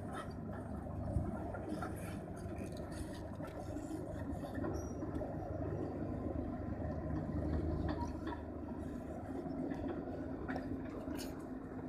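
Diesel engine of a Hyundai crawler excavator running as it digs, a steady low drone that swells slightly about two-thirds of the way through, with a few faint clanks near the end.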